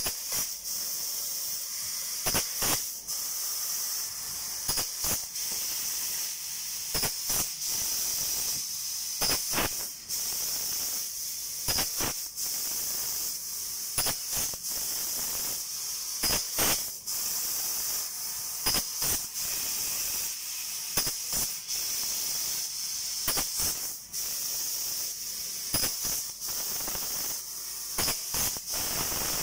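A 6000 W fiber laser cutting machine cutting 5 mm aluminium sheet makes a steady high hiss. The hiss is broken by short, sharp cracks at irregular intervals, about one every second or two.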